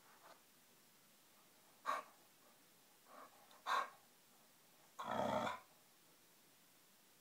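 A chow chow puppy breathing out in short, sharp, noisy puffs, about two seconds and nearly four seconds in. A longer, louder huff of about half a second follows about five seconds in.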